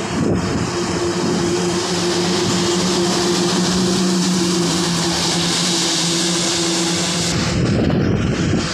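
A heavy truck pulling a loaded flatbed trailer passes close on a wet road. Its diesel engine gives a steady hum, with tyre hiss off the wet surface that is loudest about halfway through and fades near the end.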